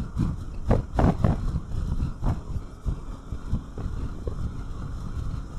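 Wind rushing and buffeting over the microphone of a Yamaha Xmax 300 maxi scooter riding at road speed, with the scooter's running and road noise underneath. The gusts come unevenly, strongest about a second in.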